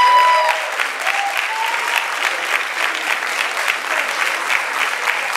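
Audience and stage performers applauding steadily, with a high whooping cheer near the start and a couple of short shouts about a second in.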